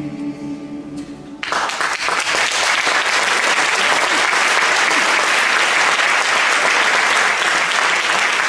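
A mixed choir holds its final chord, which ends about a second and a half in; the audience breaks into applause at once and keeps applauding steadily.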